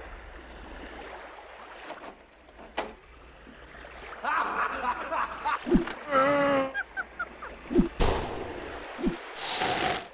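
Cartoon fight sound effects: a low rumble at first, then sharp knocks and hits, a character's yell that wavers in pitch about six seconds in, and a few thumps and a rushing swell near the end.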